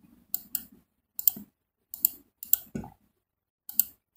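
Irregular sharp clicks from a computer mouse and keyboard as CAD commands are picked and entered, about ten in all, several in quick pairs.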